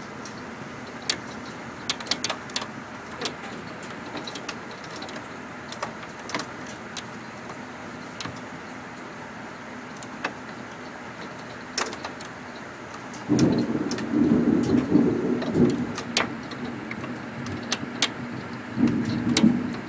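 Thunder rumbling through a closed window: a loud low roll breaks in suddenly about two-thirds of the way through and lasts a few seconds, and a second rumble begins near the end. Scattered sharp ticks sound throughout over a steady low background.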